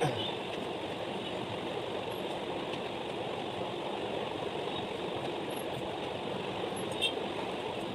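Steady whoosh of a ceiling fan running at speed, with faint rustling of clothes now and then.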